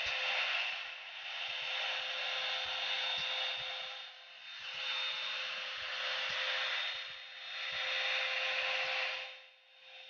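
Revlon One-Step hot-air dryer brush running: a steady rushing blow of air with a thin motor whine. The rush swells and fades about four times, every two to three seconds.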